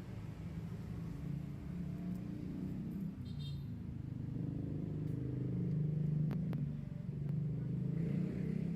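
An engine running with a low, steady hum that grows louder about halfway through.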